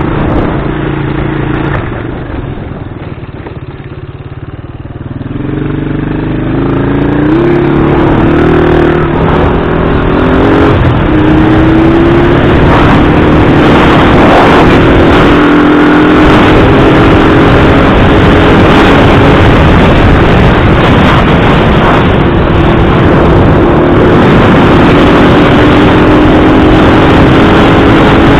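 Heavy wind buffeting the microphone with a loud rumble, over an engine running steadily that rises in pitch several seconds in and then holds level.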